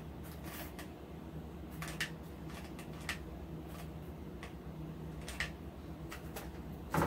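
Scattered light clicks and small handling noises from a hot glue gun being worked and moss being pressed into place, over a faint steady low hum.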